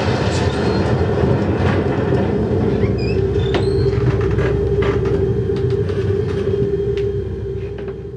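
A loud, steady rumbling noise with a steady mid-pitched tone, scattered clicks and a few short high squeaks, fading away near the end.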